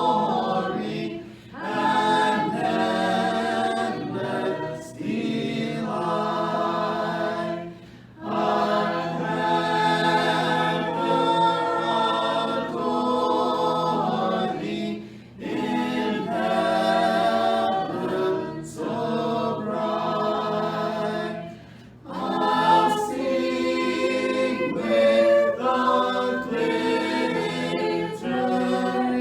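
A group of voices singing a hymn a cappella in harmony, in long phrases with short breaths between them.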